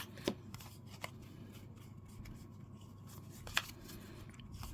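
2023 Topps Series 1 baseball cards being handled and flipped through one by one. A faint rustle of card stock is broken by a few sharp clicks, the loudest about three and a half seconds in.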